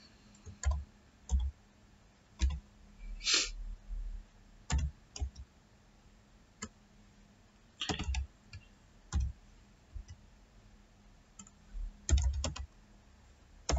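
Computer keyboard keys pressed one at a time at a slow, irregular pace as a vehicle identification number is typed in, with a few quicker presses together near the end.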